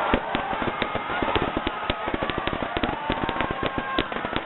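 Fireworks going off in a rapid barrage of sharp bangs and crackles, several a second.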